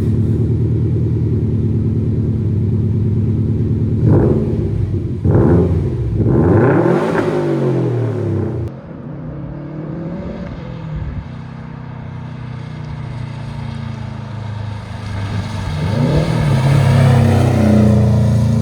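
Subaru WRX STI's turbocharged boxer four-cylinder engine running through new larger tailpipes and a replacement rear exhaust section: idling, blipped twice about four and five seconds in, revved higher around seven seconds, then settling to a quieter idle that rises again near the end.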